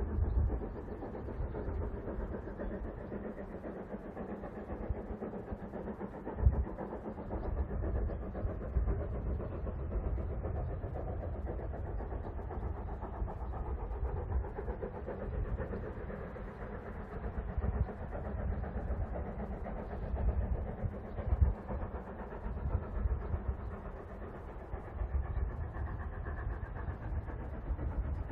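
Steam locomotive hauling its train, heard from far off: a steady rumble with uneven low swells and an odd sharper knock.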